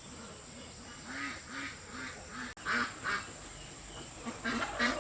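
Farm poultry calling in a run of short repeated calls, about three a second. About halfway through there is a sudden break, then louder, busier calls.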